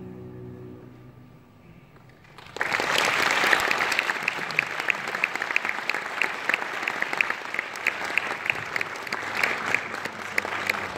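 The last of the backing music fades out, then an audience breaks into applause about two and a half seconds in, with many separate hand claps heard.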